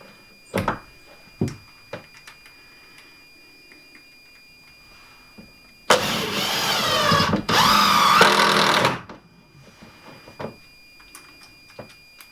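A power saw runs for about three seconds, in two bursts with a short break between, cutting a timber beam. Before it come a few sharp knocks of wood being handled.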